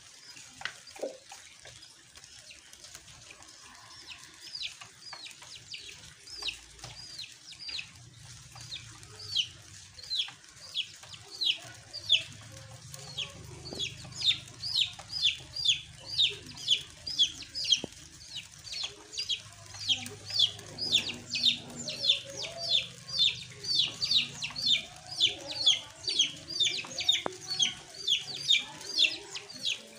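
A bird peeping over and over: short, high calls that fall in pitch. They come sparsely at first, then grow louder and settle into a steady run of about two or three a second.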